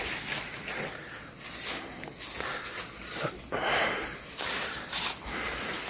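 Insects shrilling steadily in a high, even tone, with scattered footsteps and rustling through grass and undergrowth.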